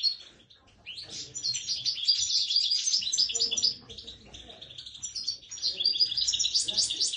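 Small caged songbird singing a fast, high twittering song of rapid notes in long runs, breaking off briefly just after the start and going softer for a moment around the middle.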